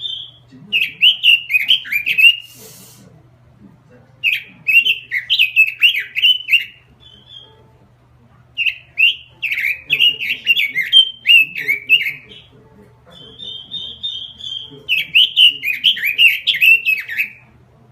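Pekin robin (red-billed leiothrix) singing in full song: four bursts of rapid, falling whistled notes, each lasting two to three seconds, with a short, high, rapid trill before the last burst.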